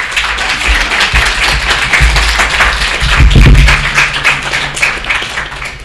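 Audience applauding with many hands clapping, dying down near the end.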